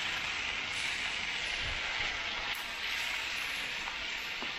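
Steady sizzling of teriyaki-marinated chicken on a hot Blackstone flat-top griddle coated in peanut oil.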